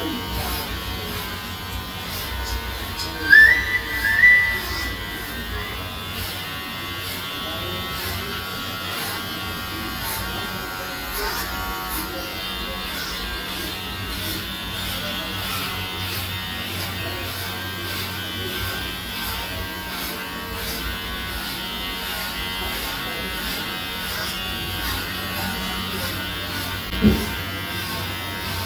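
Electric hair clippers buzzing steadily while cutting hair down to a buzz cut. About three seconds in there is a brief, loud, high two-note tone, and a short thump near the end.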